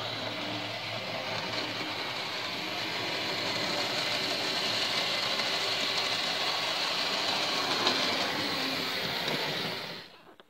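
Hornby OO gauge Terrier tank locomotive running on sectional track with a train of wagons, its small electric motor whirring and its wheels rattling over the rails and points. It grows steadily louder as it approaches, then stops suddenly near the end.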